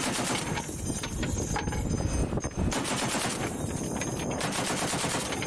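Pedestal-mounted heavy machine gun firing in several bursts of rapid automatic fire, with short gaps between bursts.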